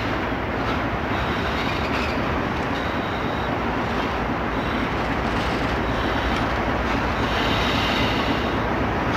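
CSX diesel locomotive running as it rolls slowly past hauling covered hoppers, with a steady engine sound and wheel noise on the rails. A thin, high wheel squeal comes and goes, strongest near the end.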